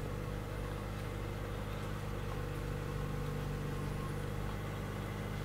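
Steady low machine hum made of several even tones, unchanging throughout.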